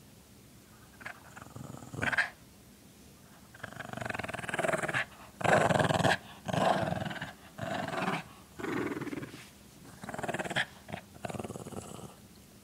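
Small long-haired dog growling while tugging on a braided rope toy: a play growl. It comes in short bursts, a couple about one to two seconds in, then one after another with brief breaks from about four seconds in until near the end.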